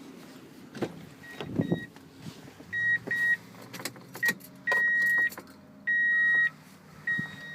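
Sharp electrical clicks and knocks in a 2000 Toyota Tundra's starter circuit as a new starter relay is tried, then a run of high, steady electronic beeps of uneven length, the longest about half a second.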